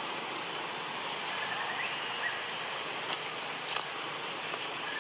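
Forest ambience: a steady high insect drone, with a few faint short chirps and a couple of light clicks.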